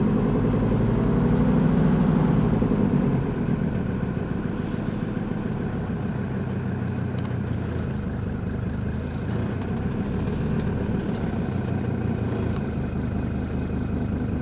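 Mercedes-Benz W123 300D five-cylinder diesel engine running with a knocking, ticking sound likened to an old tractor. It settles down to a steady idle about three seconds in. The owner finds all five cylinders working, so the knock is not from a dead cylinder.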